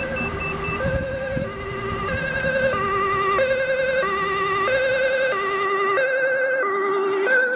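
Dutch ambulance's two-tone siren, stepping between a high and a low note about every two thirds of a second, each note with a slight warble, growing louder as the Mercedes-Benz Sprinter ambulance approaches at speed.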